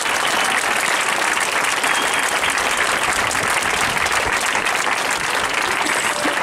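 Large crowd applauding steadily, a dense, even clapping with no break.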